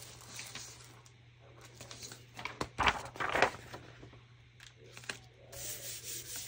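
Paper and craft supplies being handled on a work table: soft rustling and small knocks, with two louder rustles close together about three seconds in.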